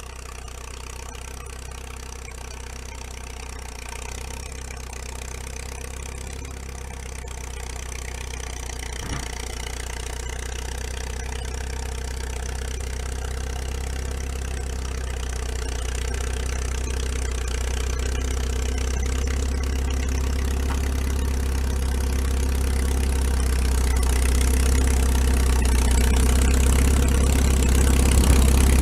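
1940 International Harvester T-9 crawler tractor running steadily as it drives toward the listener, growing louder throughout as it approaches.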